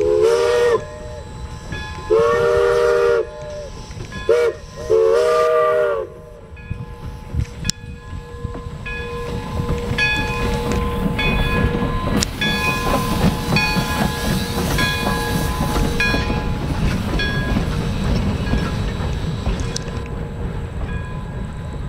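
Steam locomotive whistle, several notes sounding together, blowing four blasts within the first six seconds, the third very short. Then the locomotive works past with a rumble and evenly repeating exhaust chuffs and rail clatter, loudest in the middle and easing near the end.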